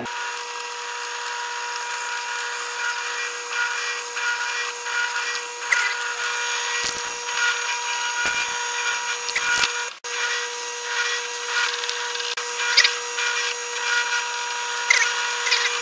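Benchtop drill press running with a steady motor whine while its bit bores through wooden knife-handle blocks, with scratchy cutting noise from the wood. The sound breaks off briefly about ten seconds in.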